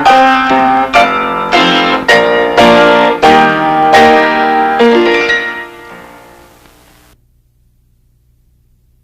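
Music of struck, piano-like chords, a new chord about every half second, fading out about six seconds in and leaving only a faint low hum.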